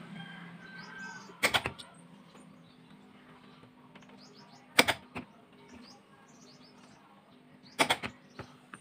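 A few sharp clicks and knocks from handling parts and tools, spaced a few seconds apart, over faint bird chirps and a low steady hum.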